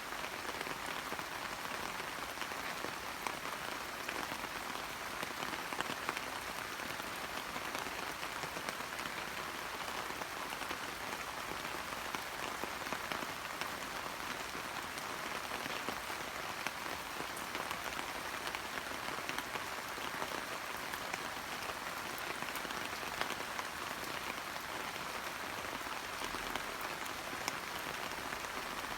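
Steady rain falling on leaves and flowers, a continuous patter of fine drops with no change in strength.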